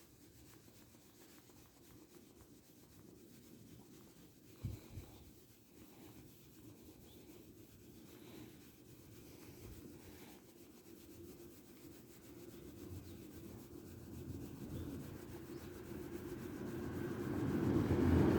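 A hand stroking a Shiba Inu's moulting coat: soft, continuous rubbing of fur, with a couple of light knocks about four to five seconds in. The noise grows louder near the end.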